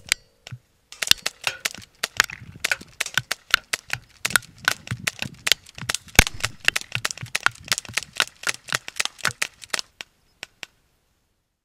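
Two H&K USP CO2 airsoft pistols fired in quick succession, sharp cracks at about four to five shots a second for some nine seconds, with a few last scattered shots near the end.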